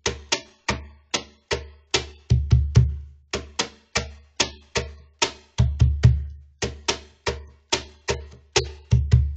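Cajon played solo in a steady groove of sharp slaps, about three to four a second, with deep bass tones ringing under many of the strokes.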